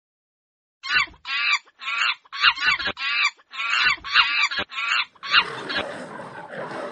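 Monkey chatter sound effect: a rapid run of about ten short, high calls, about two a second, starting about a second in. A rougher, noisier sound follows near the end.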